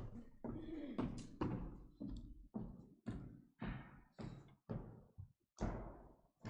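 Footsteps on a hard floor, about two a second, each step a sharp knock with a short echo in a large church, growing fainter as the walker moves away from the microphone.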